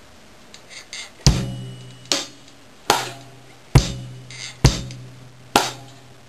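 Drum kit playing a slow bossa nova groove: cross-stick clicks on the snare rim with bass drum, and lighter hi-hat ticks between. The strong strokes come evenly, a little under one a second, starting about a second in.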